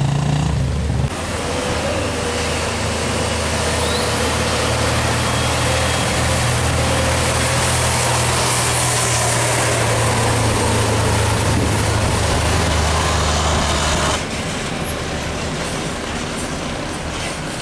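Heavy diesel truck passing close by, its engine a loud low drone with road and air noise swelling as it goes by; the drone cuts off suddenly about fourteen seconds in.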